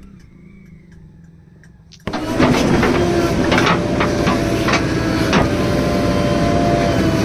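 Faint low engine hum, then about two seconds in a loud diesel machine noise comes in abruptly and keeps going, with repeated metallic knocks and a steady whine over it: a JCB 3DX backhoe loader working.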